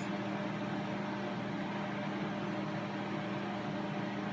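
Steady low hum over an even hiss, unchanging and with no other events.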